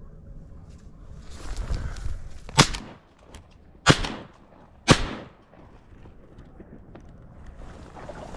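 Three shotgun shots fired at flying ducks, the first about two and a half seconds in, then two more about a second apart.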